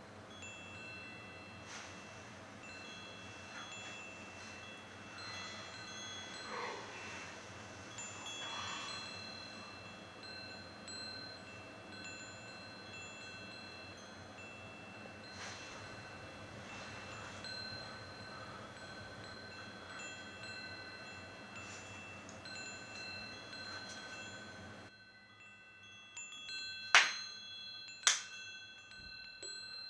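Wind chimes tinkling, with many overlapping ringing tones over a low steady hum. Near the end the hum drops away and two sharp, loud strikes ring out about a second apart.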